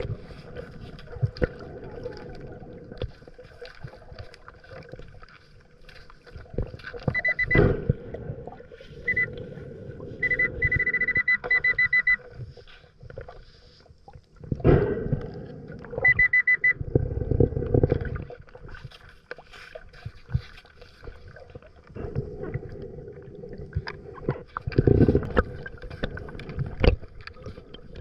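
Nokta Makro Pulse Dive underwater metal detector beeping a steady high tone in short spells, pulsing quickly for about two seconds near the middle, as its coil picks up a metal target in the seabed sand. Low gurgling rushes of the diver's exhaled breath bubbles come and go, the loudest a little past halfway.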